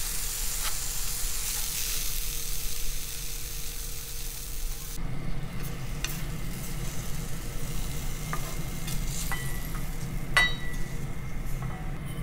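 Julienned daikon peel and carrot stir-frying in sesame oil, sizzling as chopsticks stir it in the frying pan. The sizzling cuts off suddenly about five seconds in, then a few light clinks follow as the stir-fry is scraped out into a ceramic bowl.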